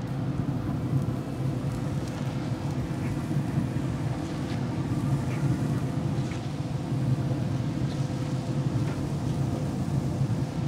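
Z Grills pellet grill running at temperature with a steady low hum from its fan, and a few faint light taps as raw chicken thighs are laid on the open grate.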